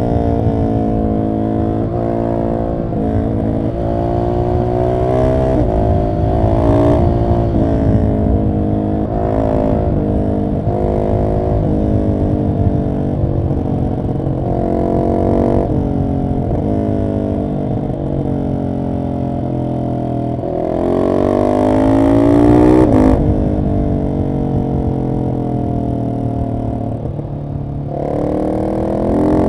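Husqvarna 701 SM's single-cylinder engine through an Arrow exhaust with the catalyst removed, pulling hard through the gears: the pitch climbs and drops back again and again with each shift. Near the end one long rising pull cuts off sharply.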